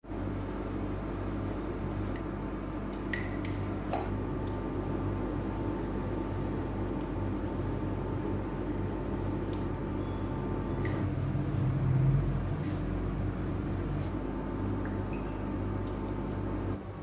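Seasoning spooned into a steel stockpot of broth: a few light clicks of the spoon against the pot over a steady low hum, with a dull bump about twelve seconds in.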